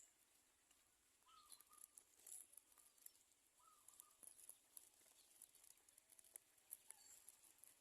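Faint, short bird chirps, three of them a couple of seconds apart, over near-silent background with light scattered ticking.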